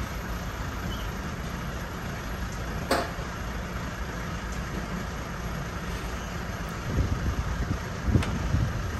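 Semi-truck engine running steadily, with one sharp click about three seconds in and a few louder low surges near the end.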